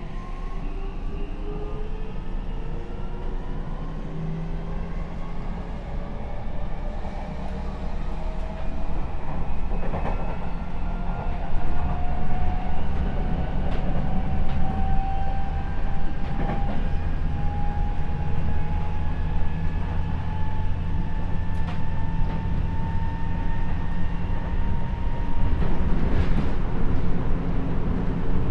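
Seibu 6000 series electric train heard from inside the carriage while accelerating. The Mitsubishi SiC inverter-driven traction motors give a whine that climbs steadily in pitch over the rumble of the wheels, with a few sharp rail-joint clicks.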